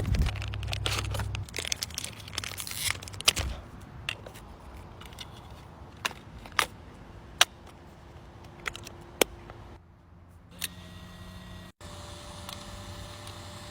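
Paper crinkling and tearing with scattered sharp clicks and taps, as paper blind bags are handled and opened. The sounds break off about ten seconds in, and fainter handling with a low steady hum follows.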